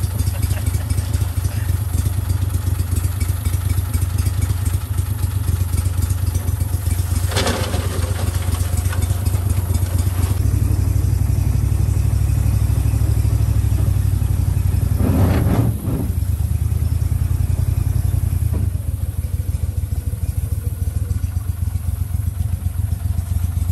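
Gator Tail shallow-water mud motor driving an aluminum crawfish skiff, running steadily under way; its pitch changes about ten seconds in and again near nineteen seconds as the throttle is shifted. Two brief rushing noises, at about seven and fifteen seconds, break through the engine sound.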